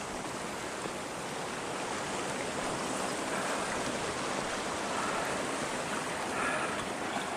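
Creek water flowing steadily over rocks, swollen by the night's rain.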